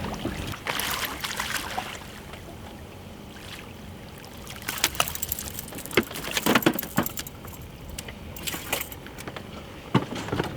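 Irregular metallic clinks, rattles and knocks as a freshly landed giant snakehead is handled aboard a boat, with the lure and tackle jangling; the clicks come thickest from about halfway through.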